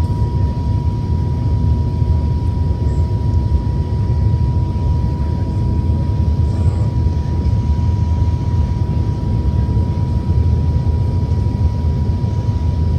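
Steady low rumble of an Airbus A380's jet engines and airflow heard inside the passenger cabin, with a thin, steady high tone running through it.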